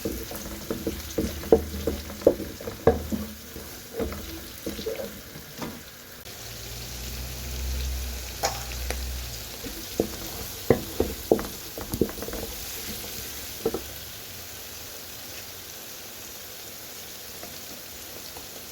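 Sliced onions sizzling in hot vegetable oil in a pot as they are sautéed. A utensil knocks against the pot many times in the first few seconds and again about ten to fourteen seconds in, with a low rumble from about six to nine seconds in. Only the sizzle remains near the end.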